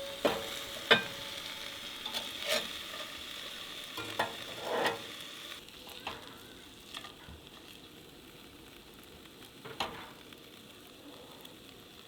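Salmon frying in a pan, sizzling steadily, with a handful of sharp clinks and scrapes of a cooking utensil against the pan. The sizzle fades about halfway through.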